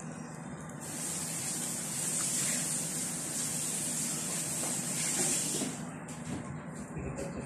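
A steady hiss, starting about a second in and stopping abruptly about five seconds later.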